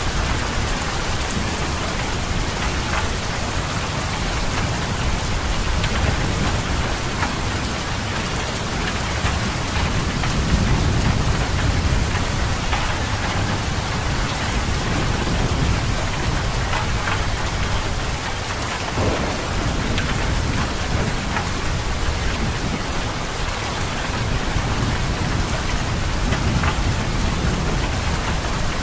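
Heavy rain pouring steadily, with low thunder rumbling under it and swelling about ten seconds in.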